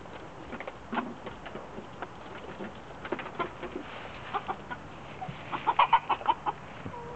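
Backyard chickens clucking: short, separate calls throughout, with a quick flurry of louder clucks about six seconds in.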